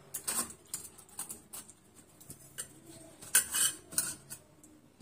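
Steel ladle clinking and scraping against a steel vessel as boiled tamarind pulp is pressed down with it: irregular knocks and scrapes, the loudest a little past the middle.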